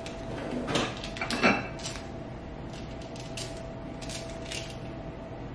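Metal kitchen utensils clinking in an open drawer as a wire whisk is taken out: two sharp clinks in the first second and a half, then a few faint light clicks.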